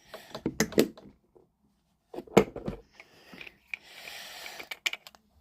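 Clicks and knocks of small objects being handled and set down. About four seconds in there is a soft hiss lasting about a second.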